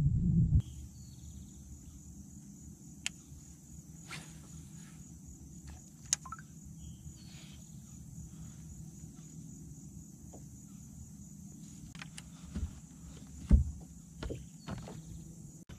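Open-water ambience on a bass boat: a steady high insect drone and a low hum. Scattered small clicks and knocks come from rods and tackle being handled, with a heavier thump on the boat deck about thirteen seconds in.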